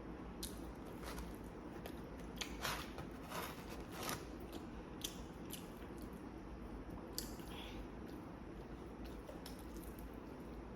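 A person biting and chewing food close to the microphone, with a series of short crisp crunches and moist clicks, mostly in the first seven seconds.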